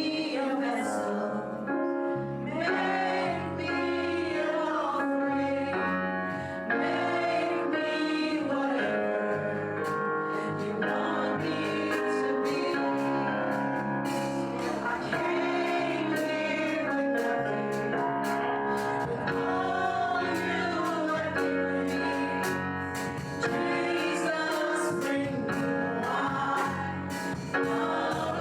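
Live gospel worship music: several voices singing together over sustained instrumental chords.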